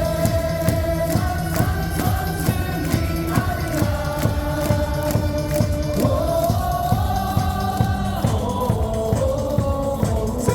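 Amplified stadium music with a steady beat and a sung melody, with many voices singing along in unison like a cheering section chanting a team song.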